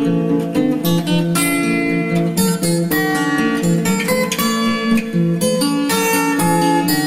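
Background music: acoustic guitar playing a run of plucked notes and strums.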